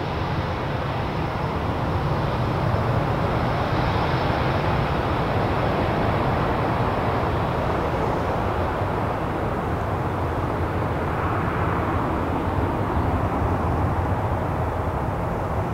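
Airbus A320's jet engines running during the landing rollout, a steady broad rumble that holds even throughout, its higher hiss easing slightly after about halfway.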